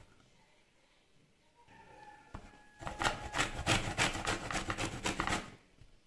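Lemon rubbed against a flat stainless-steel hand grater to zest its peel: a quick run of scraping strokes, about five a second, starting about three seconds in and stopping shortly before the end.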